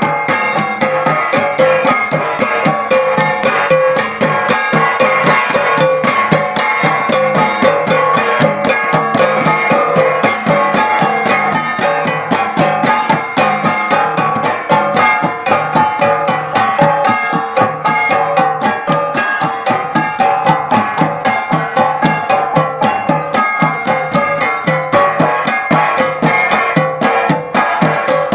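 An ensemble of Cordillera gangsa (flat bronze gongs) beaten in a fast, steady interlocking rhythm, the many strikes blending into a ringing metallic texture.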